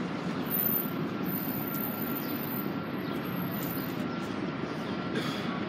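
Steady low rumble of a heavy truck moving slowly past close by in city traffic.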